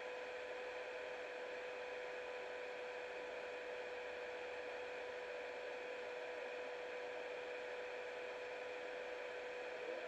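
Steady hiss with a constant humming tone, unchanging throughout.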